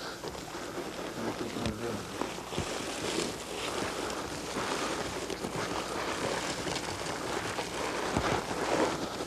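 Wind rushing over the microphone, with rustling of scrub brush as a hunter pushes through it.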